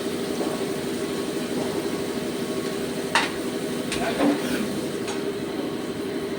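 CNC turning machine running: a steady mechanical hum made of several constant tones, with a sharp click a little past the middle and a duller knock soon after.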